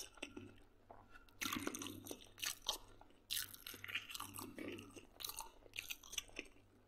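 A person chewing and biting pork head sausage close to the microphone: faint, irregular mouth noises with short gaps between chews.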